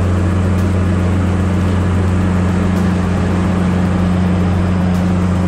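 Heavy diesel engine of a logging machine running steadily, a deep even hum with no change in speed.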